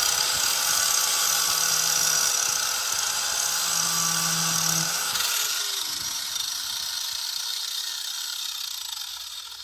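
Handheld angle grinder with an 80-grit disc grinding the cutting edge of a mower blade to sharpen it: a steady high whine over a harsh grinding hiss. About five seconds in, the motor's pitch falls and the sound fades away as the grinder winds down.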